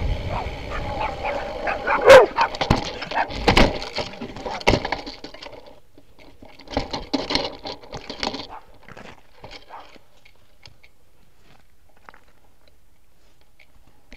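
Dog barking close behind a moving bicycle, one loud bark about two seconds in, followed by sharp knocks and clatter as the bicycle is knocked over.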